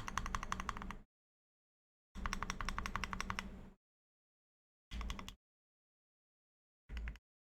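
Mechanical keyboard with lubed and filmed Tangerine linear switches, an aluminum plate and PBT keycaps, typed on in four bursts of quick keystrokes, each key a separate click. The first two bursts last about a second and a half, the last two are brief, and there is dead silence between them.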